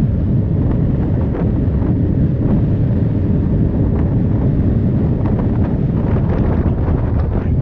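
Heavy wind buffeting on the microphone over the low, steady rumble of a moving motorcycle.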